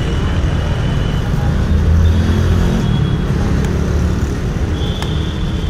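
Street traffic: a steady low rumble of passing vehicles that swells about two seconds in.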